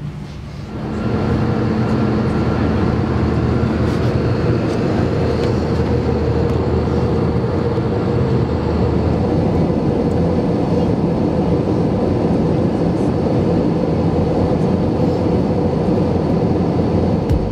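Steady cabin noise inside a jet airliner: the rumble of the turbofan engines and rushing air, with a faint steady hum on top. It comes in about a second in and holds level.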